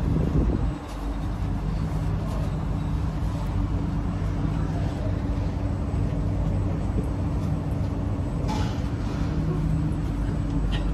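Steady hum and low rumble inside the carriage of a Kawasaki C151A metro train, with constant humming tones over the rumble. There is a brief louder patch at the very start and a faint click or rattle about eight seconds in.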